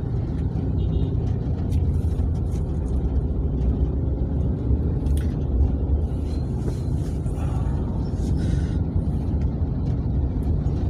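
Steady low rumble of a car's engine and tyre noise, heard from inside the cabin while driving in city traffic.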